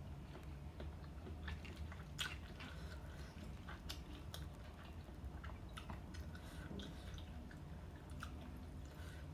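A person chewing squid and papaya salad, with scattered small wet clicks from the mouth.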